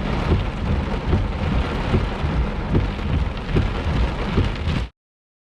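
Heavy thunderstorm rain pelting down with thunder rumbling, the rumble rising and falling. The sound cuts off abruptly near the end.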